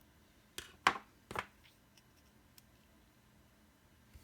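Three short clicks and knocks from handling small screws and a small screwdriver on the mod's metal housing, bunched between about half a second and a second and a half in, the middle one loudest. A faint tick follows.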